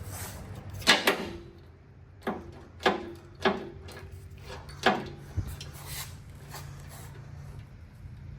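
Two-post car lift's safety locks catching as the lift rises: about six sharp metal clunks over the first five seconds, irregularly spaced, over a steady low hum. Only one column's lock is heard engaging, which the owner takes for a fault.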